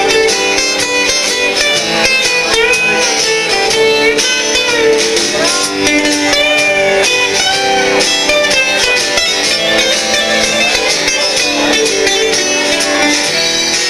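Live band playing an instrumental break in a Christmas song, with guitars and drums; no singing.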